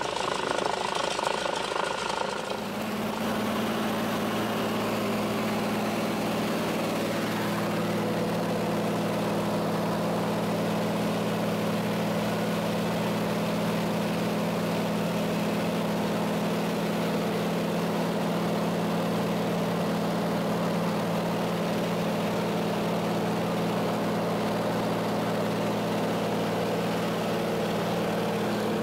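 Floatplane's piston engine and propeller running steadily, heard from aboard as the plane moves across the water. About two seconds in, a busier, more varied engine-and-water sound gives way to an even drone that holds steady.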